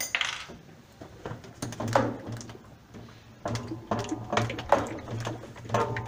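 Hands-on work at a top-load washing machine's wash basket: a sharp click at the start, then irregular knocks, clatter and metallic clinks.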